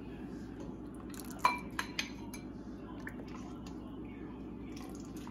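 A ladle clinking against a stainless steel stockpot and ceramic bowls as soup is dished out. One sharp ringing clink comes about one and a half seconds in, two more follow quickly, then a few lighter taps.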